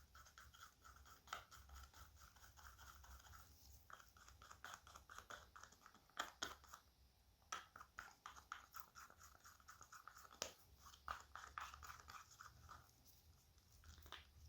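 Faint, irregular scraping with small clicks as casting resin is stirred in its mixing container to blend in the green tint, over a low steady hum.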